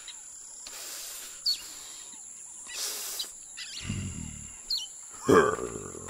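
Sound-effect jungle ambience with bird chirps and a couple of brief rushes of hiss. A low rumble comes about four seconds in, and a louder pitched animal-like cry comes a little after five seconds.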